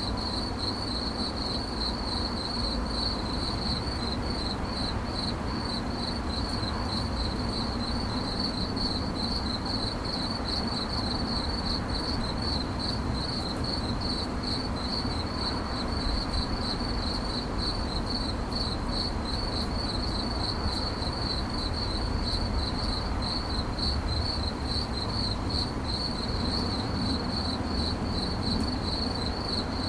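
A cricket chirping continuously in a fast, even pulsing trill at a high, steady pitch, over a low background rumble.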